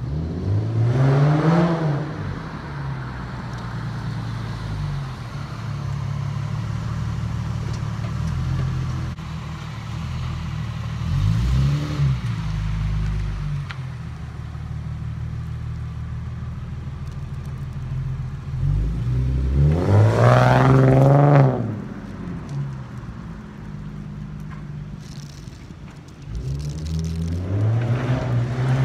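2008 Infiniti G37 Coupe's 3.7-litre V6, breathing through high-flow cats and a Manzo axle-back exhaust, making repeated flybys. Its note rises and falls four times as it revs past, loudest about twenty seconds in, with a steady exhaust rumble between the passes.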